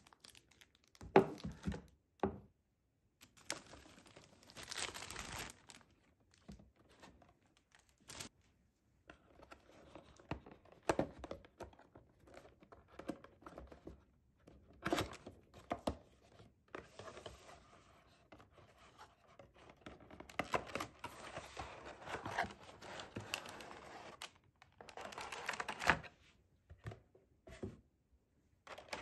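Unboxing sounds: cardboard and plastic packaging being handled, crinkled and torn open in irregular rustling bursts, with sharp taps and knocks as the box and a clear plastic tray are moved on the table.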